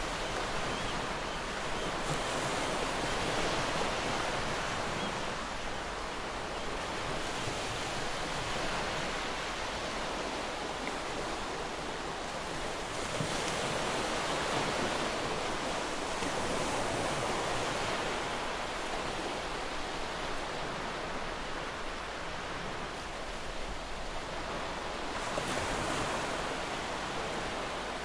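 Sea waves washing onto a shore, a steady rush of surf that swells and eases every few seconds.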